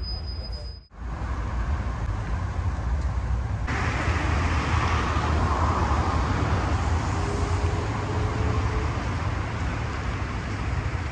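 Street traffic: a steady low rumble of road vehicles with a noisy wash that grows brighter from about four seconds in.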